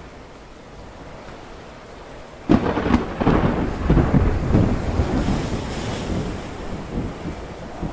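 Stormy-sea ambience recording: a steady wash of storm noise, then a sudden loud crash about two and a half seconds in that rumbles on and slowly fades.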